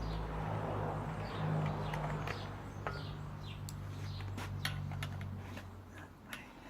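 Small birds chirping over a steady low hum that fades out about five seconds in, with light clicks and taps as the chainsaw's covers and screws are handled.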